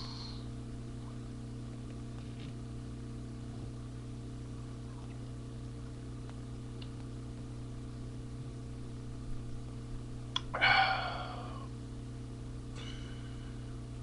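A loud, rough burp about ten and a half seconds in, followed by a fainter one near the end, over a steady electrical hum.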